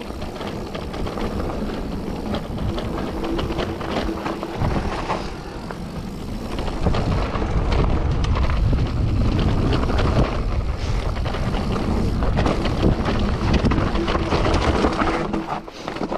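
Mountain bike riding a rough trail: tyres rumbling over the ground with constant rattling from the bike, getting louder about seven seconds in, and a brief steady tone twice.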